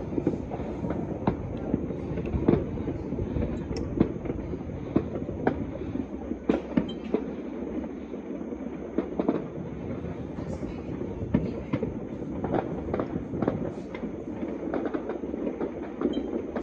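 Many fireworks and firecrackers going off at once across a distant city, heard as a continuous crackle and rumble with frequent sharper bangs standing out.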